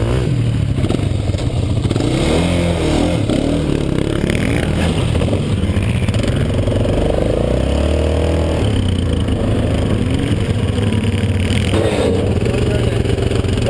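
Yamaha Grizzly 700's single-cylinder engine idling steadily close by, while other ATVs rev up and back down several times across the field.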